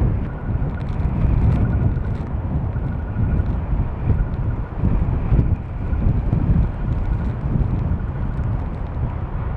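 Storm-force wind buffeting the microphone: a loud, continuous low rumble that swells and eases with the gusts.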